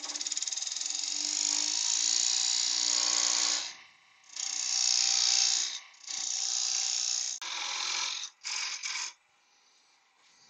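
Narrow lathe tool cutting into a spinning wooden blank with a hiss, in five passes: a long first cut of nearly four seconds, then four shorter ones that stop about nine seconds in.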